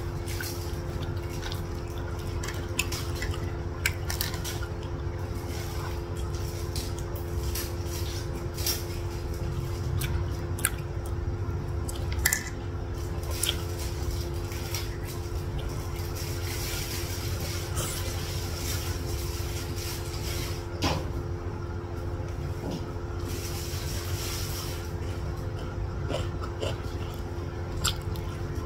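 Close-up eating sounds: chicken satay in peanut sauce bitten off bamboo skewers and chewed, with wet mouth sounds and scattered small clicks, over a steady low hum.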